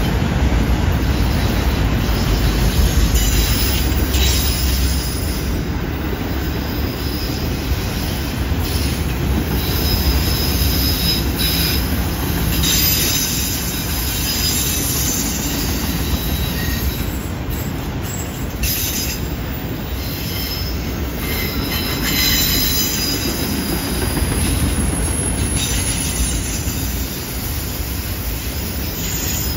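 Autorack freight cars of a CN freight train rolling past through a curve: a steady rumble of wheels on rail, with a high wheel squeal that comes and goes several times as the wheel flanges grind against the curved rail.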